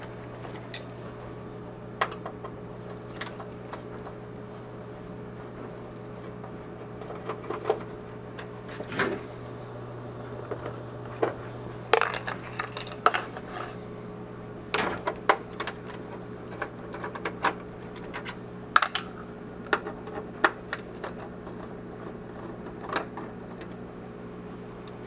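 Scattered sharp clicks and small metallic clatters of hand tools and driver bits being picked through and handled, a few each second at most, over a steady low hum.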